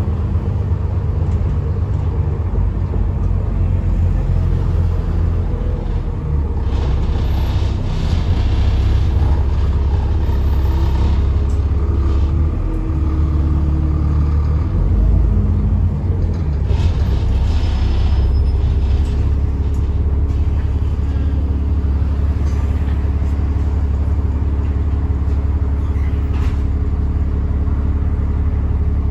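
Alexander Dennis Enviro400 double-decker diesel bus running and driving, heard from inside the passenger saloon: a steady low rumble, with the engine note rising and falling several times. A rushing noise swells briefly twice, about 7 and 17 seconds in.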